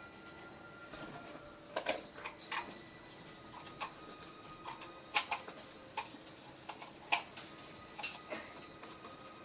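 A string of irregularly spaced sharp clicks and knocks over a faint steady background, the loudest about eight seconds in.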